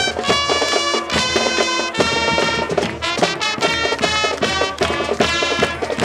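A marching band playing a lively tune, with many bright, quickly changing notes over a regular beat.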